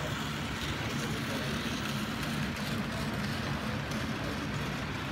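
Bachmann OO-scale Maunsell N Class 2-6-0 model steam locomotive and its coaches running along the track: a steady hum of the motor and wheels on the rails, with no sharp clicks or changes.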